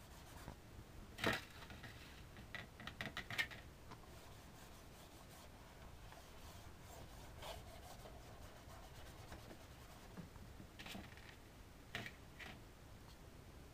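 Faint brushing of a paintbrush spreading PVA glue over cardboard, with scattered light taps and knocks as the brush and box are handled, the loudest about a second in.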